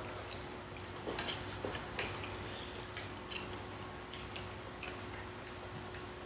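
Scattered light clicks and taps of chopsticks and tableware at a meal, with faint chewing, over a faint steady hum.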